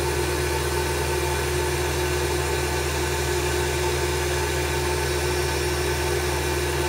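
Belt-driven spindle of a CNC-converted Grizzly G0704 mill running steadily at about 4,500 rpm, its motor fed at 90 Hz by a VFD. An even machine hum with a steady whine and no change in speed.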